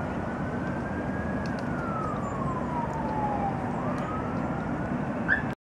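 An emergency-vehicle siren wails slowly up and down over a steady low rumble of city noise. The sound cuts off suddenly near the end.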